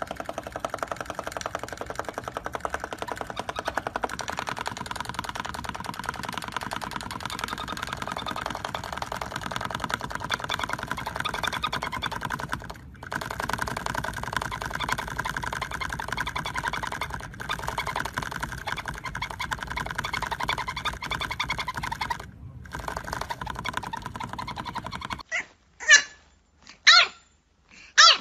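A sun conure making a rapid, steady buzzing chatter, broken by three short pauses. Near the end it gives way to a French bulldog puppy's sharp yips, three of them about a second apart.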